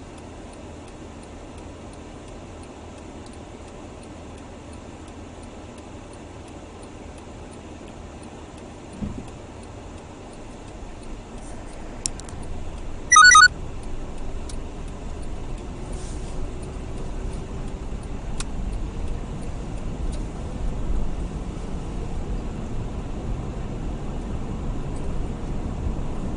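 Car interior noise heard from the dashboard: quiet while stopped, then engine and tyre rumble that builds steadily as the car pulls away and gathers speed. About 13 seconds in there is one short, loud electronic chime.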